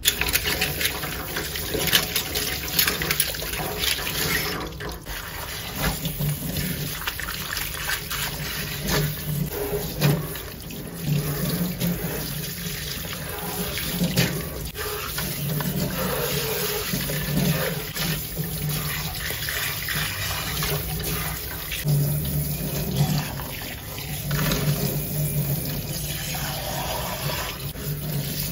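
Water running steadily from a tap into a sink, with small knocks and clatter over it.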